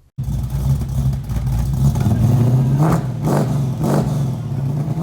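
An engine running with a steady low drone, cutting in abruptly and revved briefly about three times in the second half.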